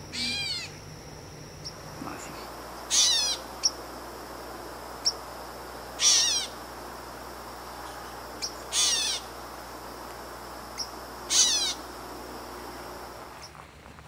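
Gray catbird giving its cat-like mewing call five times, each a short downward-slurred mew, about every two and a half to three seconds.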